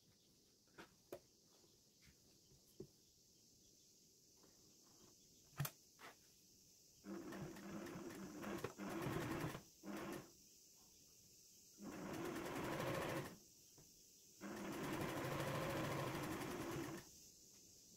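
Household sewing machine stitching a seam in four short runs of one to two and a half seconds each, stopping briefly between them. A few light clicks and taps of handling come before the first run.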